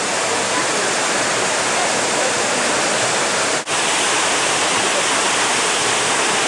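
Loud, steady rushing noise like fast-flowing water, with no pitch or rhythm. It cuts out for an instant a little past halfway, then carries on unchanged.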